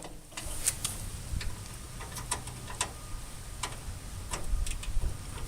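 Light, irregular clicks and taps of a socket wrench being fitted onto a nut on a steel tool chest, a couple of clicks a second.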